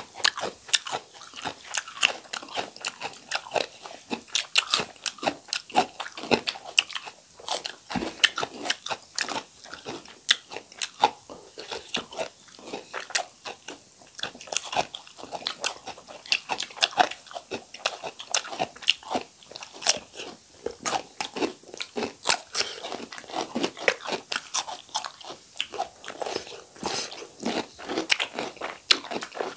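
Two people biting and chewing raw cucumber slices: a continuous run of sharp crunches, several a second.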